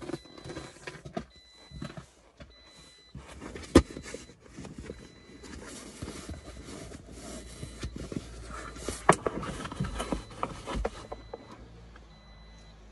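Faux leather car seat cover being pulled and worked over a front seat: rustling and rubbing handling noise with scattered knocks and clicks, a sharp click about four seconds in and another about nine seconds in.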